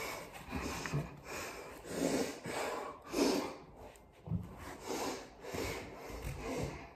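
A person's short, noisy breaths and snorts close to the microphone, about one a second.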